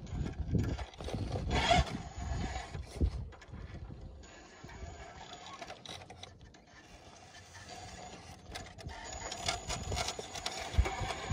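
Radio-controlled rock crawler driving over rock: its motor and gearing whine in uneven spurts while the tyres scrape and knock against the stone, with a louder surge about two seconds in and another near the end.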